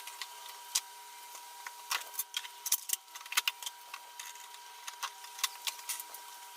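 Light, irregular clicks and taps of hands and small tools handling refrigerator parts and plastic panels, thickest in the middle, over a faint steady hum.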